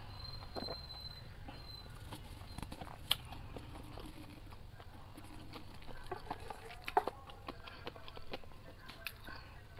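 Sips of the last broth from a paper cup of instant ramen, then small scattered clicks and taps of the paper cup and wooden chopsticks being handled, with one sharper knock about seven seconds in.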